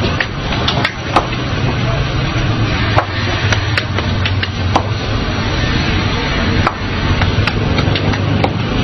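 Hands slapping and tossing balls of dough: sharp, irregular slaps about once a second, over a steady background din with a low hum.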